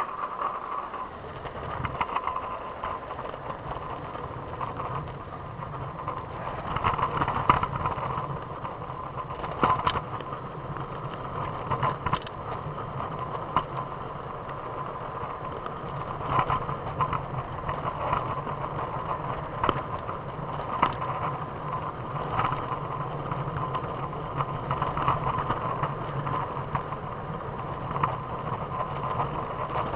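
Trikke's small wheels rolling steadily over pavement, with scattered clicks and knocks from the scooter, heard from inside a pocket.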